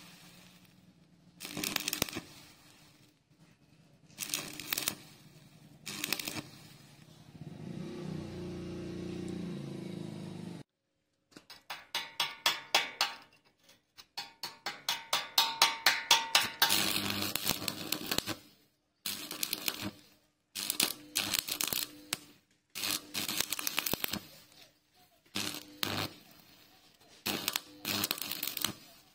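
Stick (shielded metal arc) welding on thin steel pipe: the electrode's arc crackles and sizzles in short bursts, struck and broken again and again to lay tack welds that bridge a gap. In two stretches the arc pulses several times a second, and for a few seconds midway a lower steady hum sounds instead.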